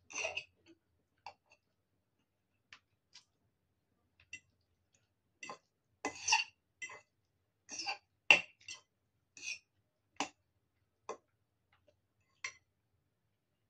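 A metal fork clinking and scraping against a ceramic bowl as noodles are twirled and eaten, with chewing. The sound comes as a dozen or so short, irregular clicks, the sharpest about eight seconds in.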